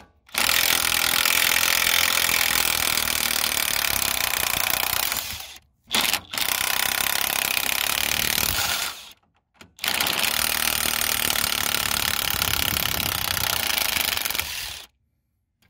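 DeWalt 20V cordless impact wrench with a 15 mm socket hammering on a rusty front track bar bolt to break it loose. It runs in three long bursts with short pauses between them.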